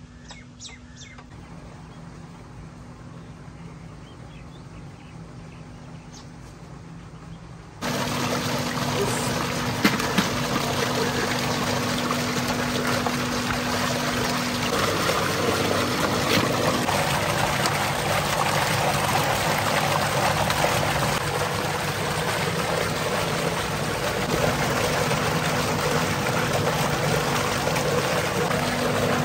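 Low, quiet outdoor background with a few light clicks, then about eight seconds in a sudden loud, steady rush of water gushing from a pipe into a concrete tank and splashing into and around a metal tub of goat trotters as they are rinsed.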